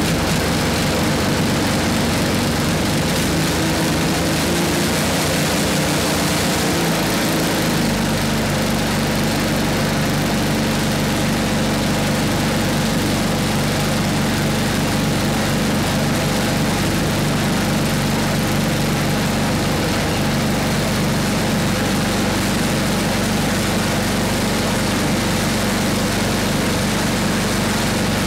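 8 hp Briggs & Stratton single-cylinder engine on a 1979 Toro 826 snowblower running steadily, just restarted while still warm. Its note changes about seven seconds in.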